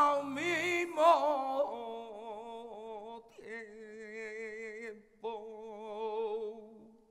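Flamenco cante: a single voice singing long, wavering melismatic notes with heavy vibrato, unaccompanied, in a few phrases with short breaks between them.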